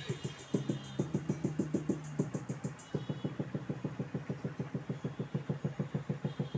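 Bass-boosted electronic music played through a Toshiba 32L37 LED TV's built-in 10 W stereo speakers: a fast, even pulsing bass beat with a held low note about a second in. The bass sits in the low-mids, with little deep bass coming through.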